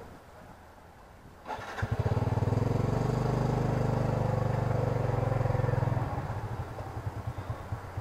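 Motorcycle engine of a tuk tuk starting about a second and a half in, running at raised revs, then dropping to a lower, uneven putter about six seconds in.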